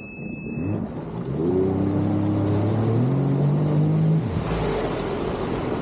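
Jet ski engine revving up in steps, then dropping off a little past four seconds in, followed by a burst of rushing noise.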